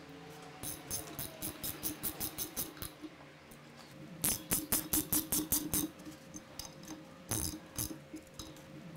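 Hand ratchet with a Torx bit clicking rapidly as it runs down the bolts of a Sea-Doo 4-Tec oil pump cover plate. The clicking comes in three runs, the middle one the loudest.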